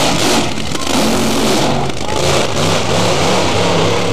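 Nitro funny car's supercharged V8 at full throttle down the drag strip: a loud, harsh, steady blast of engine noise with a couple of brief dips.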